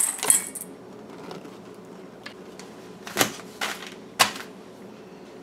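A few light clicks and knocks on a stainless steel bowl of dry macaroni as it is handled and set aside, the clearest three between about three and four and a half seconds in.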